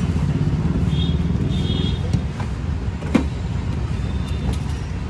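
Steady low rumble of street traffic, with a few short high chirps about one to two seconds in and a single sharp knock about three seconds in.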